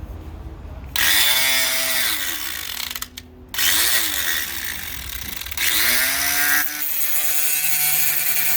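Corded angle grinder with a cutting wheel cutting through a piece of aluminum. The wheel bites in about a second in, lets off briefly around three seconds, then cuts again. Each time it takes load the motor's pitch drops.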